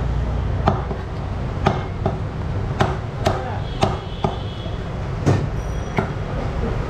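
Butcher's cleaver chopping beef on a wooden chopping block: sharp, irregular chops, about one or two a second.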